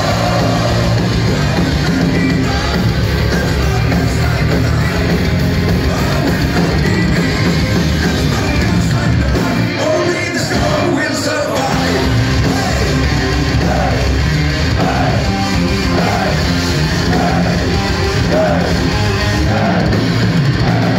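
A power metal band playing live through a PA, with a male singer, heard from among the crowd. The deepest bass drops away briefly about ten seconds in, and in the second half a melodic phrase repeats about once a second.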